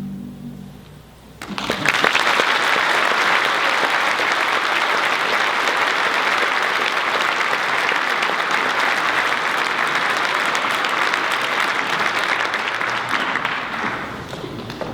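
A choir's final hummed chord fades out, then an audience breaks into applause about a second and a half in, clapping steadily and tapering off near the end.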